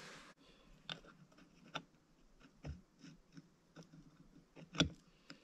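Scattered light clicks and taps of aluminum fuel-pump plates, diaphragms and gaskets being handled and set onto a carburetor, with one louder knock near the end.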